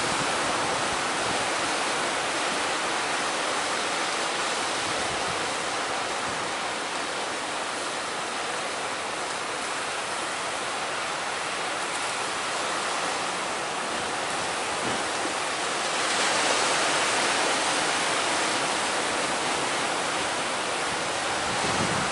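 Heavy sea surf breaking and rushing in strong wind: a steady wash of water noise that swells a little about two-thirds of the way through.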